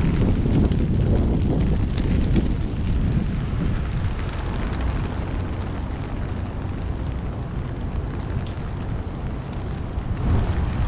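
Wind buffeting the microphone, a heavy low rumble that swells and eases, over a steady hiss of rain.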